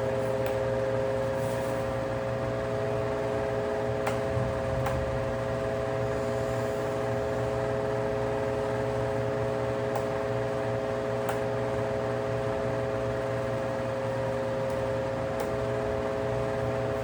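Electric desk fan running at a steady speed: a constant motor hum with a few steady whining tones over the rush of air, and a few faint clicks.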